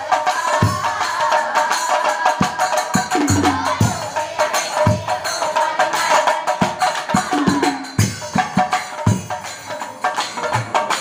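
Assamese nagara naam devotional music: deep nagara drum strokes beaten with sticks at an uneven pace under a constant clatter of cymbals, with a held tone and voices singing over it.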